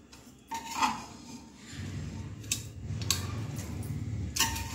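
Steel spoon and ladle clinking and scraping against steel pots as boiled grated carrots are scraped out, with several sharp metal clinks. The last clink, near the end, rings briefly. A low rumble runs under it from a little before halfway.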